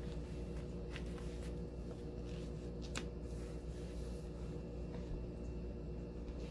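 Faint rustling of clothing and a stretch belt being handled, with a few short soft clicks, the clearest about three seconds in, over a steady low hum.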